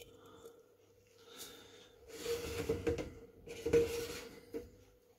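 A glass Pyrex measuring jug being shifted by a gloved hand on a stainless-steel sink, giving scrapes, rubbing and light knocks that are loudest in the middle, with a short click near the end. A faint steady hum runs underneath.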